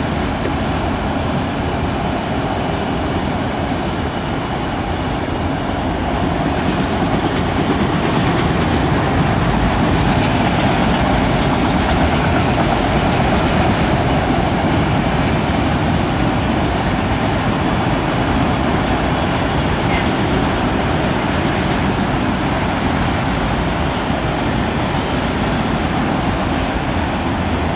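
Freight train of autorack cars rolling steadily across a railroad overpass: a continuous sound of steel wheels on rail that grows a little louder about six seconds in.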